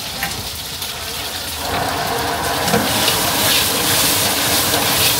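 Food sizzling and frying in a hot wok: a steady hiss with fine crackle that grows louder and fuller about a second and a half in.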